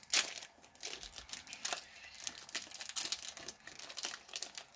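Foil Pokémon booster pack being torn open, with one sharp rip just after the start, then crinkling of the foil wrapper and the cards being handled.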